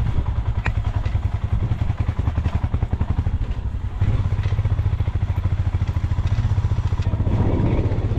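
Motorcycle engine running steadily on the move, a fast, even low beat of firing pulses, with a few sharp knocks over it.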